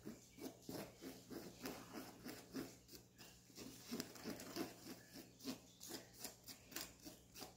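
Wooden spoon stirring and scraping dry flour and cocoa powder through a stainless-steel wire-mesh sieve, a faint rhythmic rubbing scrape at about three strokes a second.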